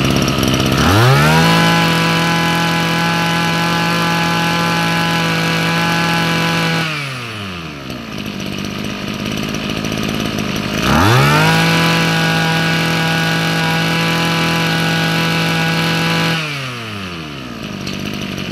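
Komatsu Zenoah G2KC 23cc two-stroke brush-cutter engine, fitted with a new two-needle carburettor, running on the floor. It is blipped from idle up to full revs twice, each time held for about five to six seconds before falling back to a steady idle.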